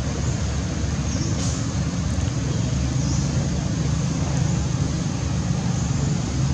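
Steady low rumble of motor-vehicle noise, with a couple of faint short high chirps about one and three seconds in.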